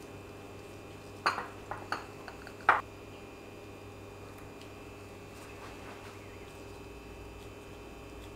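About four light clicks and knocks against glass bowls as a raw chicken wing is dredged in flour and moved to the egg wash, the last knock the loudest. A steady low hum runs underneath.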